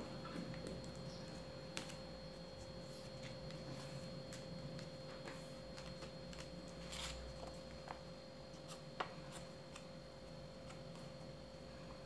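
A sheet of paper being folded and creased by hand into a paper airplane: faint rustling with a few sharp crinkles and taps, over a steady faint hum.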